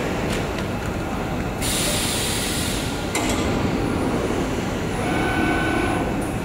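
HSG TX12036S-9 12 kW tube laser cutting machine running, its chucks feeding a long steel tube along the bed with a steady mechanical rumble. A burst of hiss starts about a second and a half in and lasts about a second and a half, and a faint whine comes in near the end.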